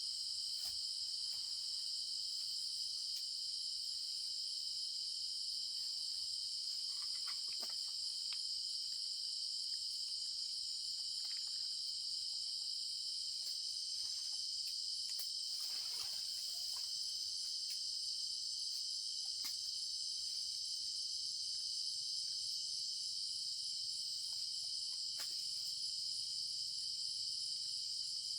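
Steady, unbroken high-pitched insect chorus with a shrill drone in several layered pitches. There are a few faint ticks and a soft rustle about halfway through.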